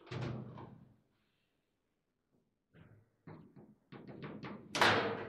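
Foosball table in play, the ball and plastic figures striking hard: a sharp knock at the start, then after a pause a quick run of clacks ending in one loud strike near the end.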